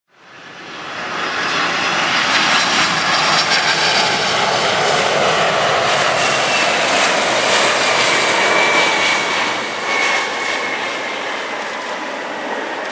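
Jet engines of a Boeing 747-400 going past close by: a loud, steady rushing noise that builds over the first two seconds and slowly eases after about ten. A faint high whine drops in pitch as the aircraft passes.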